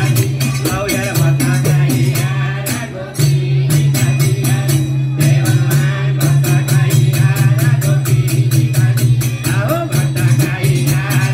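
Nepali chudka bhajan, a devotional folk song, sung over a fast, steady percussion beat with a constant low tone underneath, played loud through a PA loudspeaker. The music dips briefly about three seconds in, then carries on.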